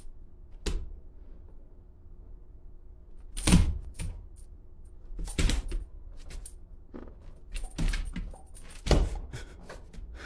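Doberman's claws clicking and paws thumping on a hard floor as it pounces after a laser-pointer dot: irregular clicks and knocks, with the loudest thumps about three and a half, five and a half and nine seconds in.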